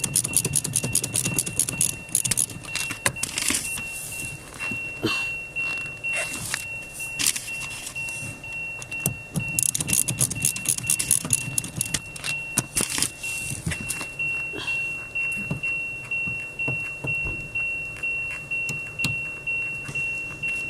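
Ratchet wrench clicking in repeated strokes, with metal tool clinks, as the 12 mm nut on the steering column's universal joint is loosened and backed off. The strokes come quick and irregular at first, then settle to a steady rhythm of about one and a half a second. A steady high tone sounds underneath.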